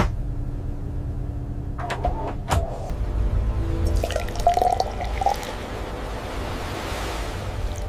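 Background music over a steady low rumble and water sounds, with a swelling hiss in the second half.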